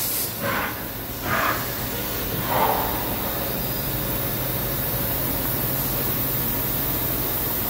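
CHIRON FZ 15K S five-axis machining center running, its spindle head moving over the trunnion table: a steady hiss with a low machine hum that grows stronger after about three seconds. Three short bursts of noise come in the first three seconds.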